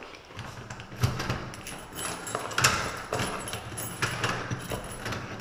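A key being worked in a door lock: a run of metallic clicks and rattles from the lock, the lever handle and the bunch of keys.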